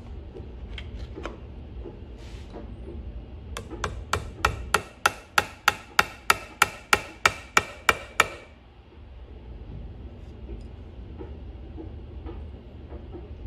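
Small hammer tapping a punch against the steel action of a Crescent Model 60 shotgun: a run of about sixteen quick, ringing metallic taps, nearly four a second, lasting some four seconds and beginning about a quarter of the way in. A few faint clicks of handled parts come before it.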